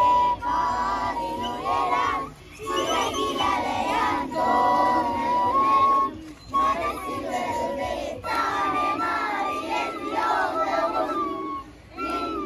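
A bamboo flute plays a tune of long held notes while a large group of children sing along together in phrases, with short breaks between lines.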